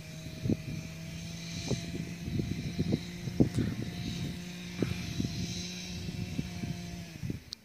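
An engine drones steadily at one pitch, with irregular low thumps over it. The drone cuts off suddenly near the end.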